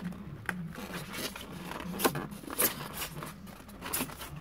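A plastic drone being worked loose by hand from a styrofoam packaging tray: foam squeaking and scraping against plastic, with a handful of sharp clicks, the sharpest about two seconds in.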